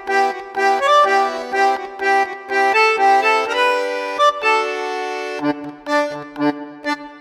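Background music: an upbeat tune on accordion-like reed instruments, playing quick repeated notes, holding a chord near the middle, then continuing with a bass line added.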